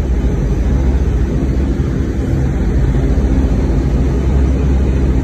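Metrorail train running at speed, heard from inside the car: a steady low rumble of the wheels on the track and the car's running gear.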